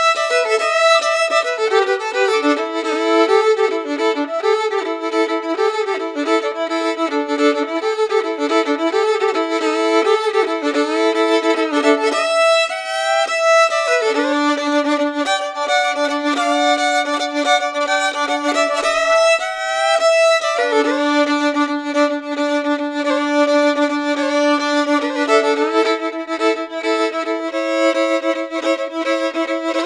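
Violin playing slow, sustained notes, often two held together, with sliding changes of pitch between them.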